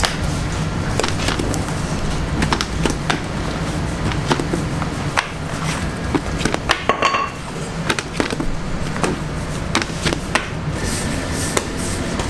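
Bakery kitchen work: scattered knocks and clinks of trays and utensils over a steady low machine hum.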